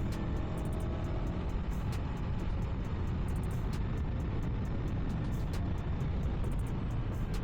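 Aprilia Tuono V4's 1077 cc V4 engine running steadily at low speed in traffic, with road and wind noise; the engine pitch rises slightly in the first second or so.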